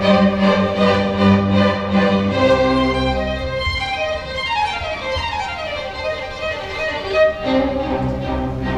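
Student symphony orchestra playing, with violins prominent over sustained lower strings; a falling run of notes sweeps down through the high parts about four seconds in.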